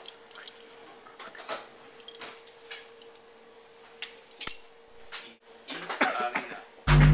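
Scattered light clinks and taps of kitchen utensils against a bowl and measuring cup while cookie dough is mixed. Loud electronic music cuts in abruptly near the end.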